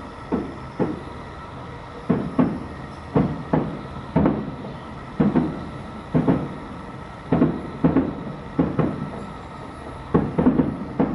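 Distant aerial fireworks shells bursting: a steady barrage of low booms, one to three a second, each trailing off in a short rumbling echo.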